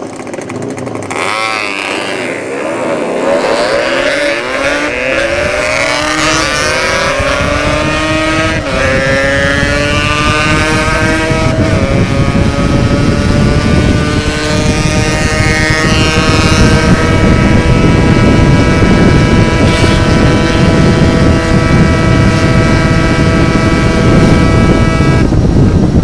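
Yamaha RX-King single-cylinder two-stroke with an aftermarket open expansion-chamber exhaust accelerating hard through the gears, its pitch climbing with short breaks at the shifts, then held at a steady high pitch near top speed. Heavy wind rumble on the microphone underneath.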